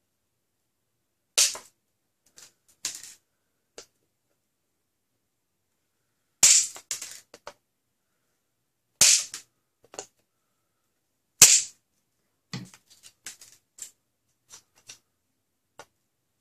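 Flush cutters snipping and cracking off plastic tabs inside a clear blaster shell: four loud, sharp snaps spread over the stretch, with small clicks and ticks of the cutters and plastic in between.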